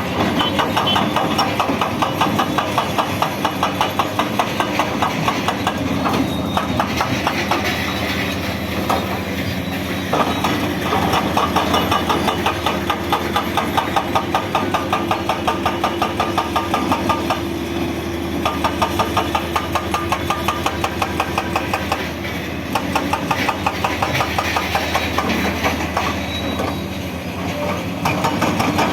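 Hydraulic breaker hammer on a Cat 336DL excavator pounding in fast, even blows. The blows come in runs of a few seconds with short pauses between them, over the steady running of the excavator's diesel engine.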